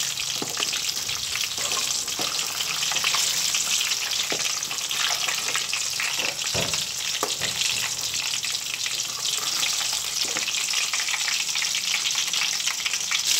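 Batter-coated stuffed green chillies deep-frying in hot oil in a metal kadai, a steady crackling sizzle. A slotted spoon and tongs turn them so both sides go crisp, with scattered light taps and scrapes of the utensils against the pan.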